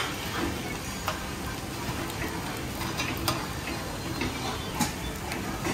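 Khanom krok batter of coconut milk and rice flour frying and sizzling in the oiled cups of a pitted cast pan. About six sharp clicks of a spoon against the pan are spread through it.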